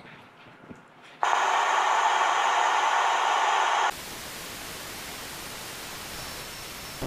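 FM radio static: the hiss of an RTL2832U-R820T software-defined radio dongle demodulating wide FM with no station tuned in. It starts suddenly and loud about a second in, then turns quieter and deeper at about four seconds as the tuning moves down the band.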